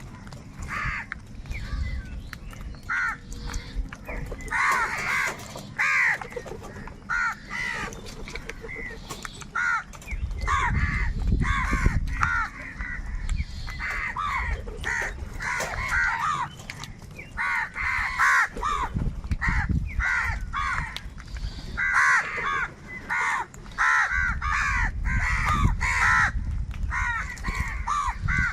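A large flock of crows cawing over one another, harsh calls following each other several a second without a break. A low rumble rises underneath at times.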